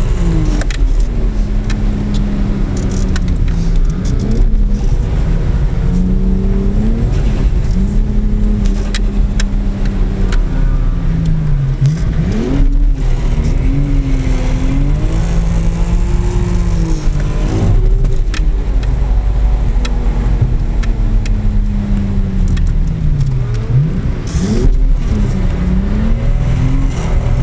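Car engine heard from inside the cabin while drifting on a wet track, revving up and down continuously as the throttle is worked, with several sharp dips in pitch that quickly climb back. A steady low rumble of road noise runs underneath.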